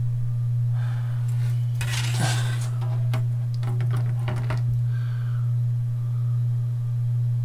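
Light clicks and clinks of a plastic model-kit sprue and small hobby tools being handled on a cutting mat, in several short bursts, over a steady low hum.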